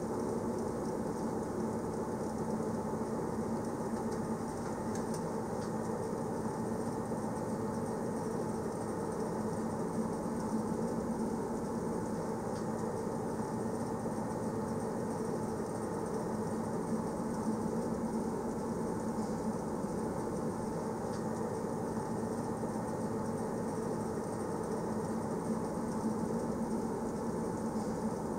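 Passenger train running along the track: a steady rumble with a constant low hum.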